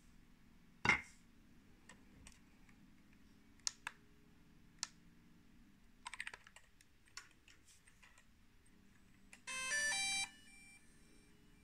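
Scattered plastic clicks and snaps from handling a DJI Mavic Mini drone and its folding arms, the loudest about a second in. Near the end, a short electronic chime of several quick tones: the drone's power-on startup tune.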